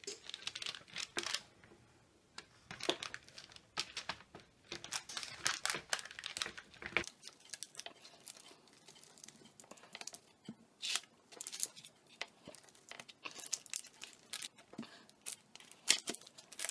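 A potato masher pressing boiled potatoes flat on a parchment-lined baking sheet: irregular soft squishes and taps with the parchment paper crinkling, busier in the first half.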